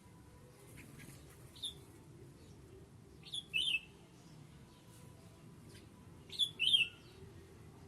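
A bird calling: short, sharp chirps, mostly in pairs, repeated every few seconds over a faint low background.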